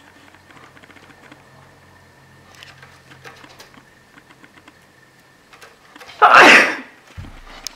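Faint scratching and clicking of a cat's claws on a sisal-rope post, then a single loud sneeze about six seconds in, followed by a brief low thump.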